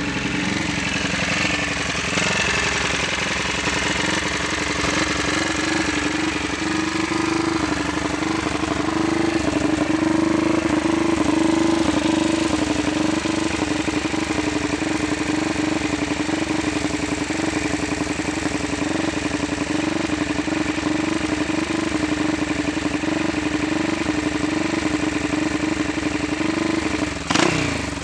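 Freshly rebuilt RE 500 racing motorcycle's single-cylinder engine running with a steady note on its first run after the rebuild. It picks up a little about a third of the way in, and near the end the steady note breaks into a few sharp, uneven blips.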